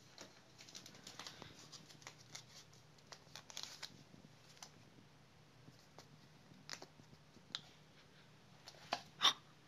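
Faint rustling and scratching of a kitten pawing, clawing and biting at a shaggy rug and a white toy stick, with scattered soft clicks and taps and a few sharper clicks in the second half.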